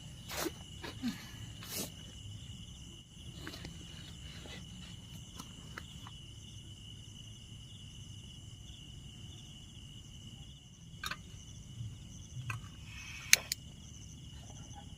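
Steady high-pitched chirring of crickets and other insects, with a few short sharp clicks and knocks scattered through it, the loudest about thirteen seconds in.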